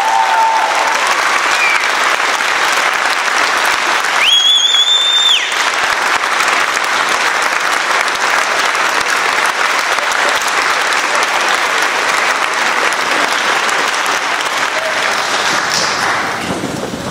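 A large audience applauding steadily. About four seconds in, one high whistle is held for about a second. The clapping thins near the end.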